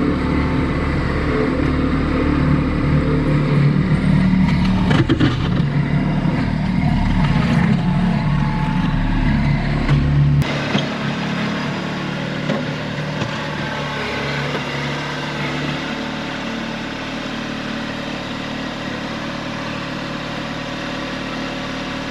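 Kubota B2650 compact tractor's diesel engine running steadily under work. About ten seconds in the sound changes abruptly: the deep rumble drops away and the engine runs on quieter.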